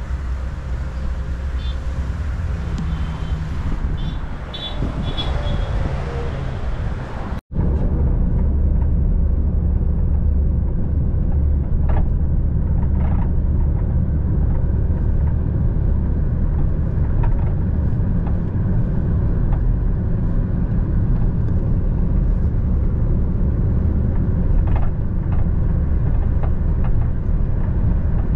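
Outdoor background noise, then after a sudden cut about seven seconds in, a steady low vehicle rumble with a few faint ticks.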